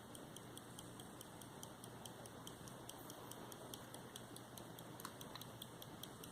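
Late-17th-century English verge fusee pocket watch by Edward East ticking faintly and evenly, about five ticks a second.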